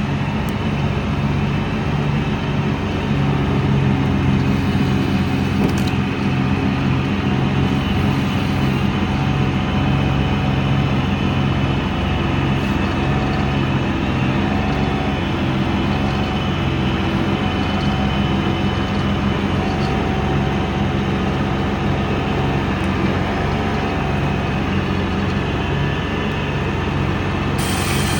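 Excavator's diesel engine running steadily under work, with a faint higher whine that wavers now and then.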